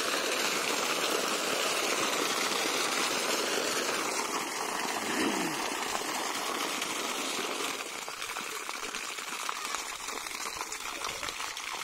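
Water splashing from two outlet pipes of a well pump onto the ground, the flow weakening after the pump is switched off; the sound drops about eight seconds in.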